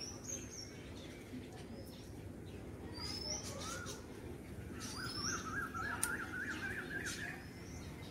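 Birds calling: a short, high, rising whistle repeated every few seconds, and a rapid warbling call for about two and a half seconds past the middle.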